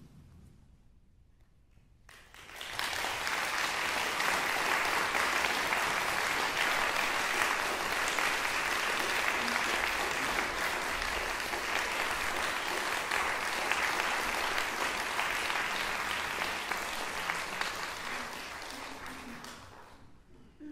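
Audience applauding. It starts about two seconds in after a brief hush, holds steady, and fades out near the end.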